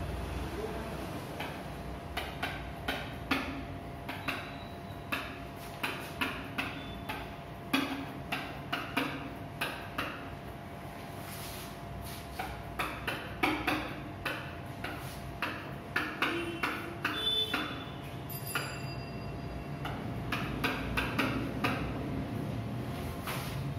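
Marker pen writing on a whiteboard: irregular taps and strokes of the tip on the board, with a few brief squeaks, and a pause of a couple of seconds near the middle.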